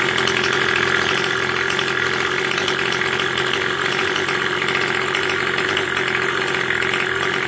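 49cc pocket bike engine mounted on a bicycle, idling steadily.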